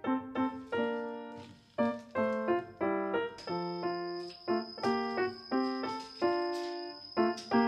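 Instrumental background music: a piano playing a light tune of short struck chords and notes, each ringing and fading before the next.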